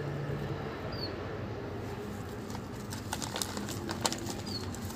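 Low steady background hum with two brief high bird chirps and a few light clicks of small plastic toy animals being handled.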